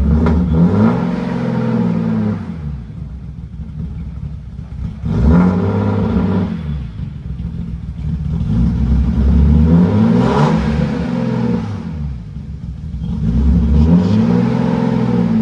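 BMW E36 M3 straight-six engine revved from idle four times, each rev rising and falling back, running smoothly with no misfire after a rebuilt fuel injector. The exhaust note is a loud rumble.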